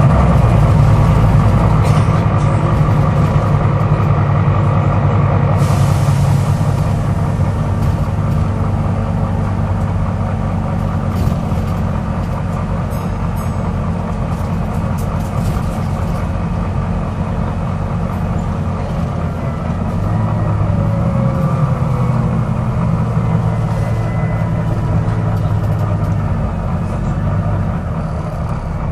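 Volvo B9TL double-decker bus's diesel engine running steadily, with a brief hiss of compressed air about six seconds in and a few clicks around the middle; the bus has a clicking noise.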